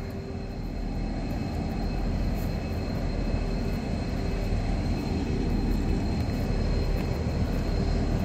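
Diesel locomotive engine running with a steady low rumble and a constant hum, growing slightly louder as the train starts to move.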